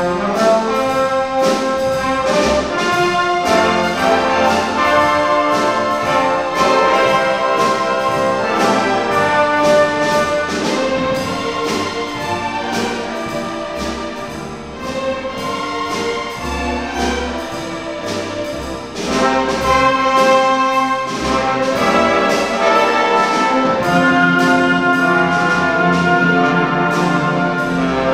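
Full orchestra with a prominent brass section playing a pops arrangement of rain songs, over a steady drum beat. The music eases off in the middle, then swells back up to full strength.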